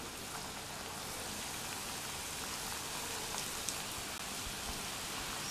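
Onion bonda batter deep-frying in hot oil in a kadai: a steady sizzling hiss of bubbling oil.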